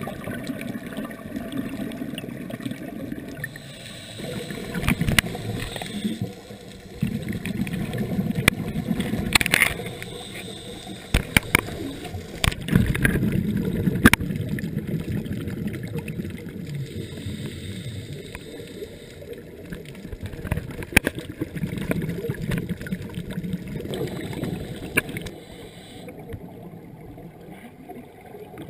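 Underwater scuba-dive sound: muffled bubbling and rumbling that swells into louder bursts every few seconds, the way exhaled regulator bubbles do, with scattered sharp clicks.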